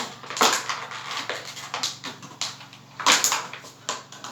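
Handling noise: an old plastic bottle crinkling and clicking as it is pressed onto a bicycle frame, with two louder crackling bursts, one about half a second in and one about three seconds in.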